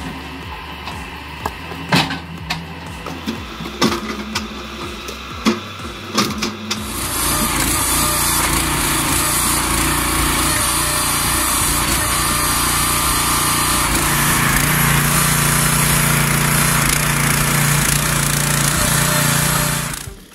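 A motor-driven log splitter hums while several sharp cracks ring out as logs are split. About seven seconds in this gives way to a small petrol engine on a hydraulic log splitter running loudly and steadily, which cuts off just before the end.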